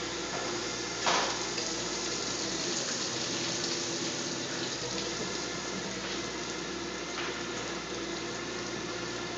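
Stainless-steel drum wine press running during a whole-cluster press cycle: a steady rushing hiss over a low hum, with a short sharp sound about a second in.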